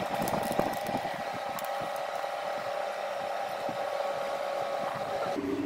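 Steady electrical hum and fan whine from an electric glass-top cooktop heating a saucepan of milk and water, dropping to a lower pitch near the end, with a few faint clicks in the first two seconds.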